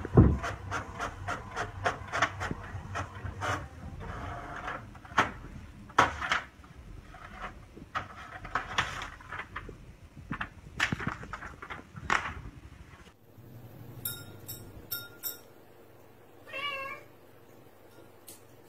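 A run of sharp clicks, knocks and paper rustling as a cat paws at a printer and drags printed sheets out of it. After that it goes quieter, with a few light clicks and one short wavering cat meow at about three-quarters of the way through.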